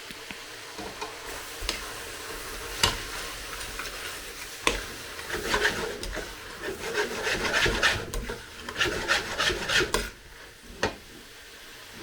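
A utensil stirring and scraping food around a frying pan: a few separate knocks at first, then a run of quick scraping strokes, and one last knock near the end.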